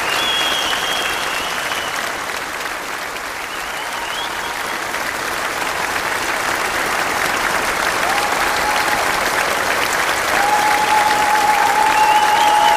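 Audience applauding steadily, with a few held high-pitched calls rising above the clapping near the start and again from about ten seconds in.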